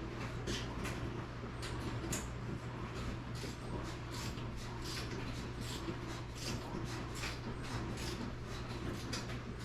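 Irregular light clicks and clinks of hand work on garage door hardware, several a second, over a steady low hum.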